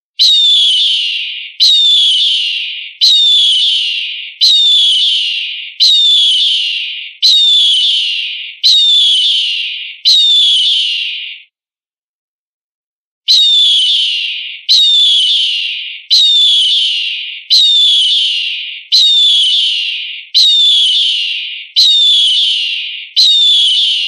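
An eagle's call, a high cry falling in pitch, repeated about every one and a half seconds. A run of eight calls is followed by a short pause, then eight more, each call identical as in a looped recording.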